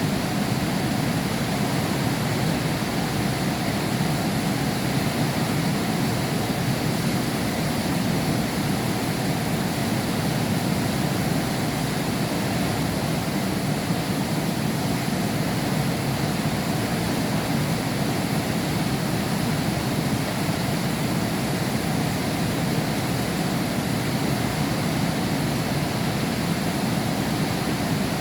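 Heavy rain falling steadily, heard from behind window glass: an even, unbroken rush with most of its weight low down and no single drops or thunder standing out.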